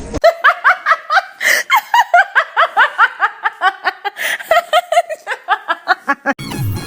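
High-pitched, rapid laughter, apparently sped up or pitched up: a long run of short rising yelps, about four to five a second. Music with a heavy beat cuts in near the end.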